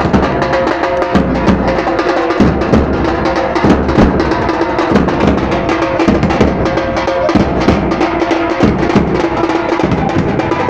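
Loud, fast drumming with a deep drum beat that drops out briefly now and then, and a steady held tone running over it.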